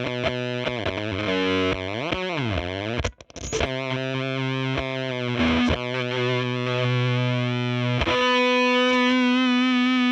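Electric guitar played through a Jext Telez Dizzy Tone version 5 germanium fuzz pedal with three OC44 black glass transistors, giving a spitting fuzz. A quick run of picked notes with a bend, a brief break about three seconds in, then sustained notes and a long held note from about eight seconds in.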